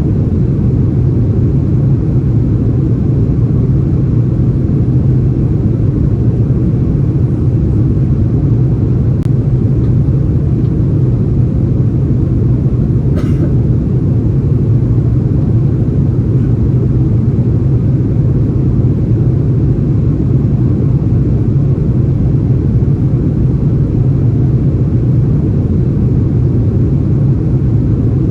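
Steady low rumble of cabin noise inside an Airbus A330-343 airliner: its Rolls-Royce Trent 700 engines and airflow, even and unchanging.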